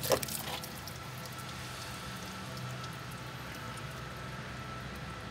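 Coolant trickling and dripping from the open end of a rubber coolant hose just pulled off the engine, as the cooling system is drained. A sharp click comes right at the start as the hose is handled.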